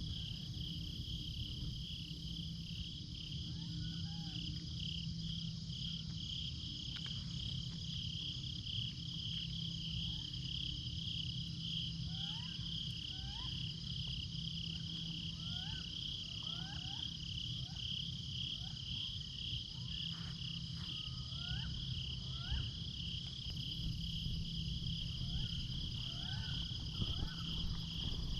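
Steady chorus of crickets and other night insects: a rapidly pulsing high trill with a second, higher steady band above it. Faint short rising chirps break through here and there over a low rumble.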